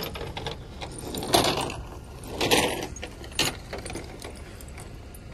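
Metal tyre snow chains clinking and rattling as they are handled and fitted, in several separate bursts about a second apart.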